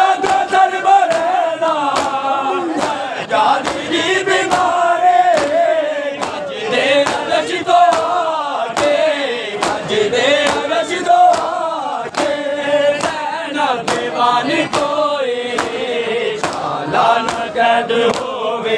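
Men singing a noha (Shia mourning elegy) in a chanting melody. Under it, a crowd of mourners beats their chests with open hands (matam), giving sharp slaps at about two a second.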